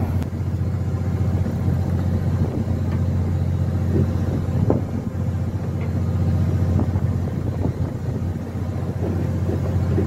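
Fishing boat's engine running with a steady low drone, and a few light knocks about halfway through.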